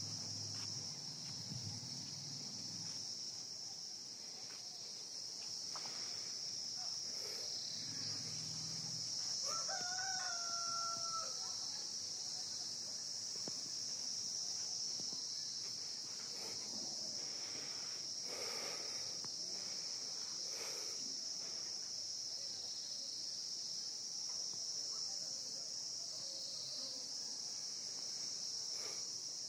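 A rooster crows once, faintly, about ten seconds in, over a steady high-pitched hiss.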